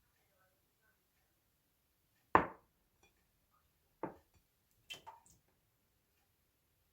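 A few separate knocks of kitchen items on a hard surface: one sharp loudest knock, another about two seconds later, then a quick double knock, with quiet between.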